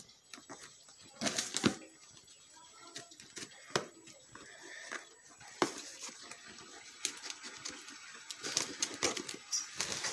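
A small blade slitting packing tape on a cardboard parcel, then the cardboard flaps being pulled open: short scratchy rustles, scrapes and taps. The loudest comes about a second and a half in.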